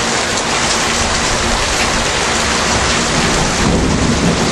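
Very heavy rain pouring down in a steady, dense hiss.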